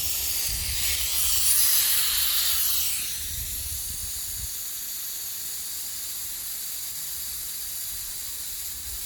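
Compressed air hissing through a tyre inflator into a SKAM 12 pneumatic telescopic mast as a section moves. The hiss is loudest for about the first three seconds, then settles to a steadier, quieter hiss.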